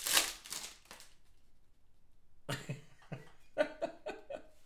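Foil trading-card pack wrapper crinkling and tearing open in the first second. After a short quiet gap, a few short, broken voice sounds come from the man.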